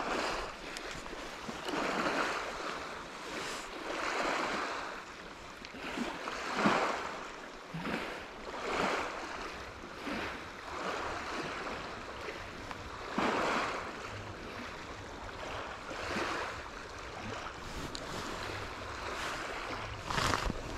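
Small waves washing onto a lakeshore, one soft wash every two to three seconds.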